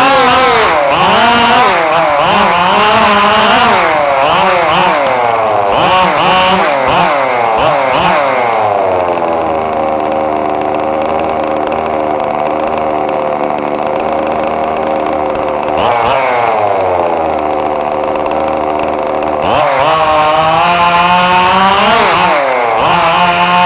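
Small RC car engine revving up and down rapidly, then dropping to a steady lower idle with a brief blip partway through, and revving up again near the end.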